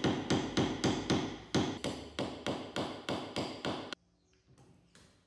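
Small hammer tapping a knockdown tool held against a car's sheet-metal hood, a quick even series of light strikes about four a second, as in paintless dent repair tap-down work. The tapping stops abruptly about four seconds in.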